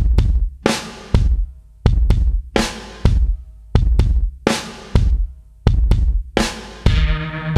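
Background music: a steady drum-kit beat of kick and snare hits. Bass and sustained instruments come in near the end.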